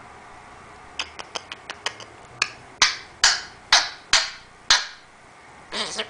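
African grey parrot making clicking sounds: a quick run of about seven small clicks, then six louder pops roughly half a second apart, each with a short fading tail.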